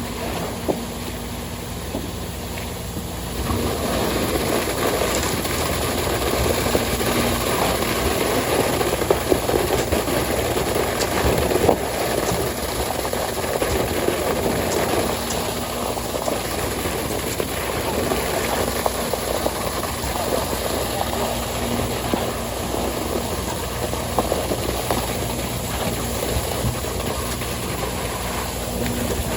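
An engine-driven machine running steadily, a little louder from about three seconds in.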